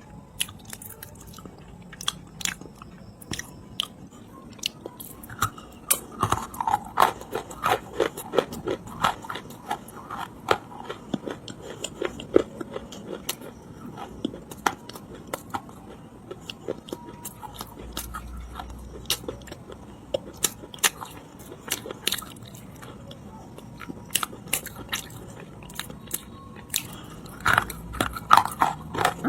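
Edible clay being bitten and chewed close to the microphone: sharp crunchy cracks and crackles, coming thick and fast for stretches and sparser in between.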